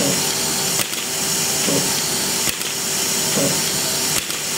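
Automatic soldering robot (Cosmic PSU-500RS) cycling from pad to pad. A steady hiss runs under three sharp clicks about 1.7 seconds apart, with a short rising motor whine between clicks, one cycle per solder joint.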